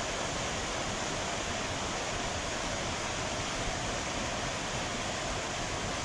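Waterfall cascading down a wide, tiered rock face: a steady rush of falling water.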